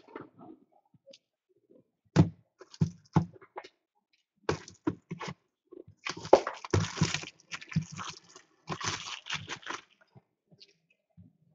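Handling of trading-card boxes and packs on a wooden desk: a run of short knocks and taps, then crinkling and rustling of packaging about six seconds in and again near nine seconds.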